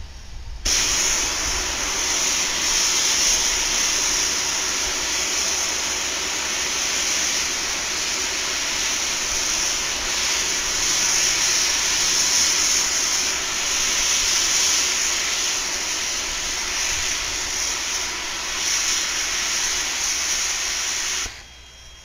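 A steam locomotive's safety valve lifting and blowing off: a loud, steady hiss of escaping steam that starts abruptly and cuts off suddenly after about twenty seconds as the valve reseats, the sign that the boiler has reached its full working pressure.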